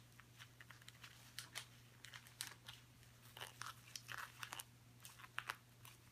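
Faint, scattered clicks and clacks of the hard plastic finger plates of a 3D-printed Iron Man armor glove knocking together as the hand flexes open and closed.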